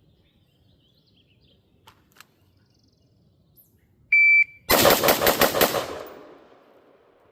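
Electronic shot-timer beep about four seconds in, then half a second later a rapid string of about six gunshots in just over a second. The reports ring on and fade out.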